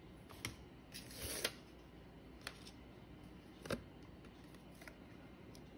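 Paper and card being handled on a tabletop: soft rustling of a paper insert, with a few light taps, the sharpest a little under four seconds in.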